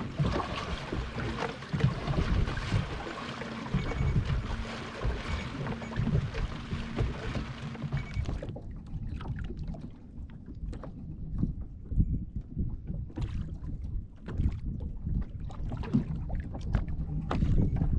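Water slapping against the hull of a small fishing boat, with wind buffeting the microphone. It is a rough, uneven rumble with irregular knocks, and it turns duller and lower about halfway through.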